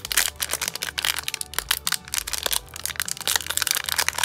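Foil wrapper of a Topps Update baseball card pack being torn open and crinkled by hand: a dense run of sharp crackles.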